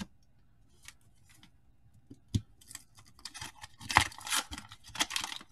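Wax-paper wrapper of a baseball card pack being peeled and torn open by hand, crinkling and crackling. It starts quietly with a click or two and builds into dense crinkling from about three seconds in.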